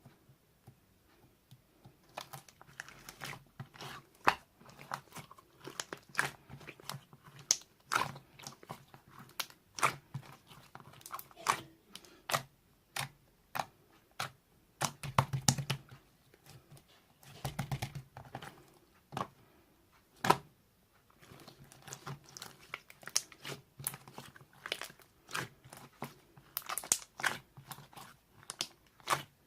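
Slime being pressed and squished by hand, giving irregular sharp clicks and pops as trapped air bursts, about one or two a second, starting about two seconds in.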